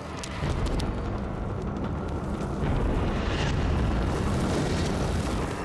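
A loud, sustained low rumble with a noisy hiss over it. It builds about half a second in, holds steady, and eases off near the end.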